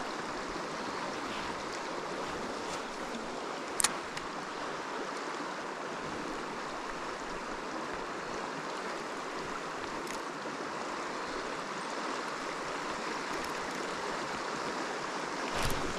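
River water running, a steady rushing hiss, with one sharp click about four seconds in.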